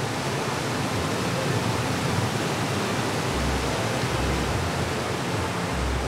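Mountain stream rushing and splashing over granite boulders in a small whitewater cascade, a steady, even rush of water.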